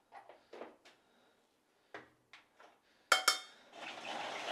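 Steel spoon scooping cooked rice into a bowl, with faint scrapes and taps. About three seconds in the spoon strikes the bowl with a sharp ringing clink, followed by a second of scraping.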